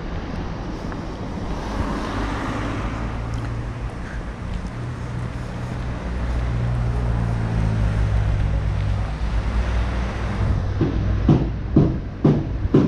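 Street traffic with a vehicle engine running close by, a steady low hum. Near the end come sharp thumps, about two a second.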